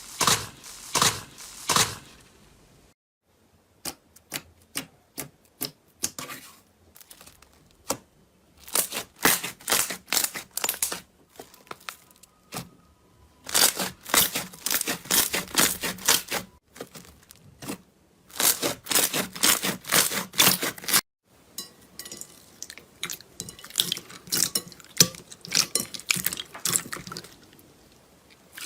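Slime worked by hand, giving bursts of sharp crackling and popping clicks. The clicks come in clusters a few seconds long, with short pauses between them.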